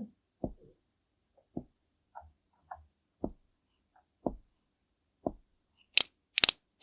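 Soft, dull taps about once a second, as makeup is dabbed onto a grapefruit's peel. Near the end come two sharp, bright clicks.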